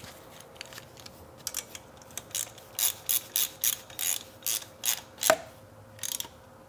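Ratchet wrench clicking as it is swung back and forth to tighten a screw on top of the engine. A run of sharp clicks comes a few times a second, stops about five seconds in, and two more clicks follow near the end.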